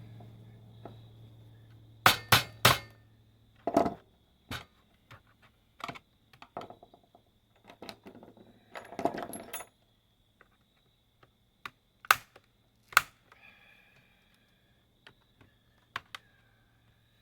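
Irregular sharp clicks and knocks of hard plastic parts and hand tools being handled while an electronic payment terminal is taken apart. A few louder knocks stand out, and there is a short rough scraping noise around nine seconds in.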